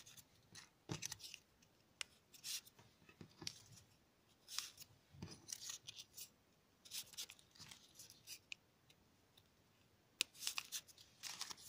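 Folded paper triangles of 3D origami being pushed into one another by hand: faint, irregular crisp rustles and scrapes of paper in short bursts.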